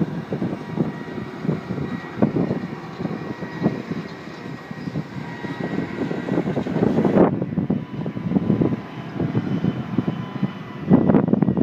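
Large diesel tractors running steadily while seeding, with wind buffeting the microphone and a thin steady whine over the engine noise. The high hiss drops away suddenly about seven seconds in.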